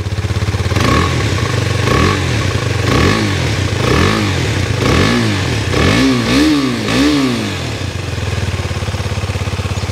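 Husqvarna Svartpilen 250's single-cylinder engine through its stock exhaust, blipped repeatedly: about once a second the revs rise and fall, closer together near the end, then it settles back to a steady idle. A typical single-cylinder exhaust note.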